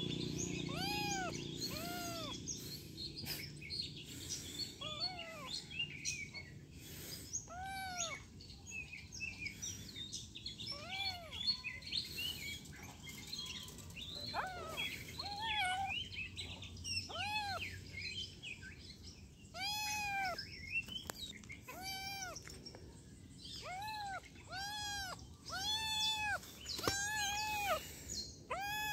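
Black-and-white kitten meowing over and over: short high-pitched mews that each rise and fall in pitch, coming about one to two a second, with a few quieter gaps of a couple of seconds in between.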